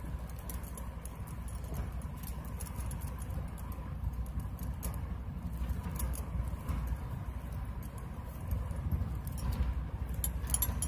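Plastic basket-weaving wire strands rustling and clicking softly against each other as they are pulled through and knotted by hand.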